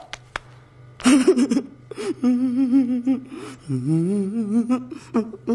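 A comic reaction-clip vocal: a short exclamation, then a man's wavering, quavering hum that wobbles up and down in pitch and slides upward partway through, over a faint steady low drone.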